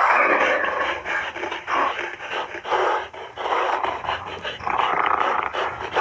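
Gorilla calling in a run of rough, breathy calls of varying length, with short breaks between them.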